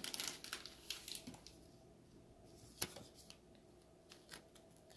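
Trading cards being slid into plastic card sleeves: faint rustling and scraping through the first second or so, then a few soft ticks, with one sharper click a little under three seconds in.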